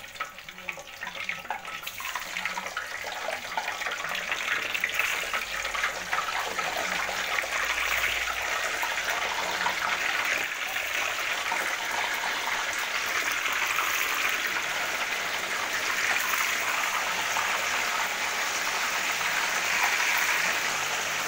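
Slices of seasoned tofu frying in a pan of hot oil: a dense, crackling sizzle. It builds over the first couple of seconds as the pieces go in, then holds steady.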